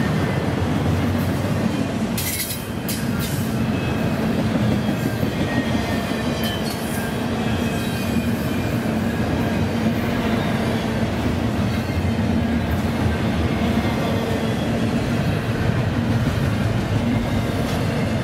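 Double-stack container train's well cars rolling past close by: a steady heavy rumble and clatter of steel wheels on the rail. A faint high wheel squeal comes and goes over it.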